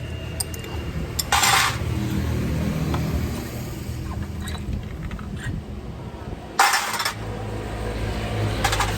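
Scooter engine running steadily, with two short bursts of hiss, about a second and a half in and again about seven seconds in.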